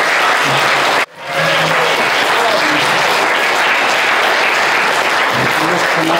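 A roomful of guests applauding steadily after a speech. The sound cuts out abruptly for a split second about a second in, then the applause carries on.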